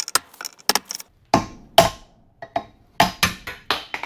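Hammer blows on metal, knocking out the old front wheel bearing after it has been cracked open. The blows come as an irregular run of sharp strikes, a few of them ringing briefly.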